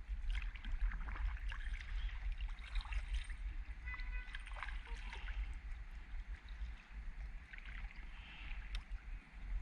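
Water splashing and lapping around a kayak, with small knocks and a steady low rumble underneath; a brief high chirp sounds about four seconds in.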